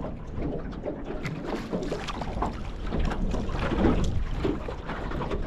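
Wind buffeting the microphone and choppy water slapping against the hull of a small aluminium dinghy, with scattered light knocks and splashes.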